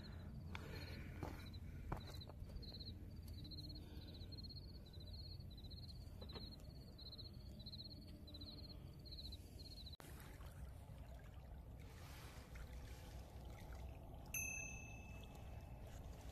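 Faint night ambience: a cricket chirping steadily about twice a second over a low steady background hiss, stopping about ten seconds in. Later a small bell rings once, briefly.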